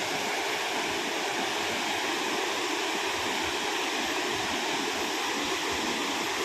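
Shifen Waterfall's falling water rushing in a steady, even roar.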